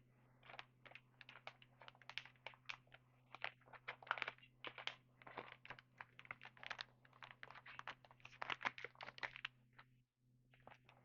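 Trading cards being handled and flipped through, a quick irregular run of small clicks and rustles, faint over a steady low hum, pausing briefly about ten seconds in.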